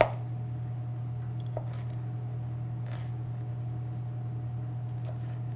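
Chef's knife slicing bell pepper into strips on a plastic cutting board: a sharp knock of the blade on the board at the start, then a few fainter, widely spaced chops, over a steady low hum.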